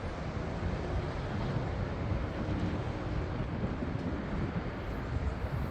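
Steady low rumble of a jet airliner's engines heard over wind buffeting the microphone.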